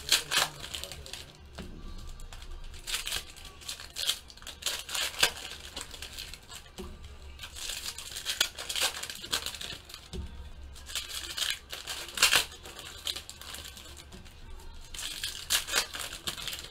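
Foil baseball-card pack wrappers crinkling and tearing as packs are ripped open by hand, in short bursts with pauses between.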